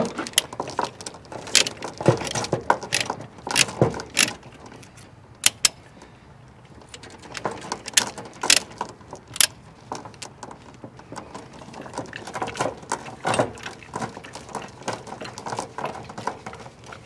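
Tie-down chain links clinking and a Peerless Quikbinder ratchet load binder clicking as the chain is hooked up and the binder is worked by hand. The sound is irregular sharp metallic clicks and jingles, with a quieter gap of a couple of seconds partway through.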